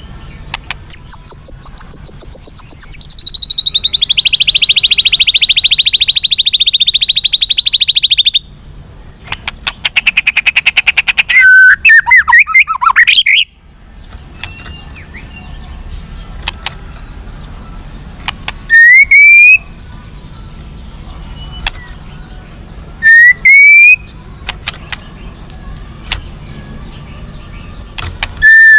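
White-rumped shama (murai batu) singing: a long fast trill of rapidly repeated notes lasting about seven seconds, then a burst of varied notes, and later two short rising whistled phrases separated by pauses.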